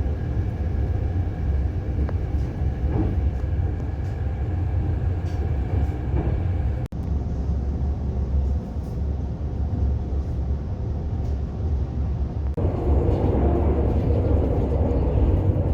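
Steady low rumble of a moving sleeper train running on the rails. The sound breaks off for an instant about seven seconds in and turns louder and fuller a little after twelve seconds.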